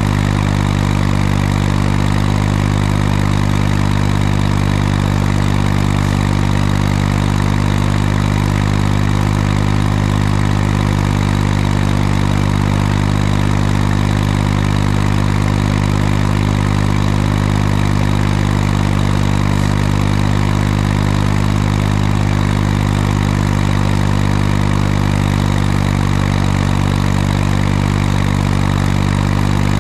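Tractor engine running at a steady, unchanging speed, loud and continuous.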